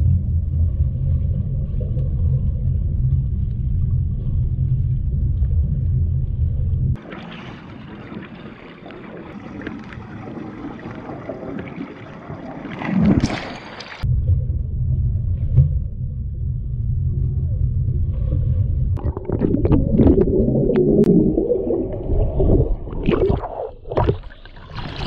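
Muffled low rumble of pool water heard through a camera held underwater, giving way in the middle for several seconds to a thinner hiss. In the last few seconds, water splashes as a swimmer breaks the surface close to the camera.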